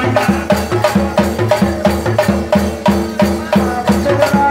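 Folk percussion: tall barrel drums beaten with a stick and a hand, with small brass hand cymbals clashing along, in a fast, steady rhythm of about four strokes a second.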